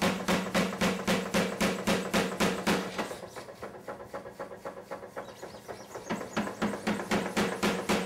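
Power hammer pounding red-hot mild steel, a fast, even run of about five blows a second over the machine's steady hum. The blows are heavy for the first three seconds, lighter through the middle, and heavier again near the end.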